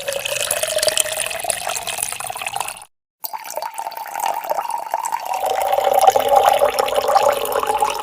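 Liquid pouring into a glass, in two pours broken by a short silence about three seconds in.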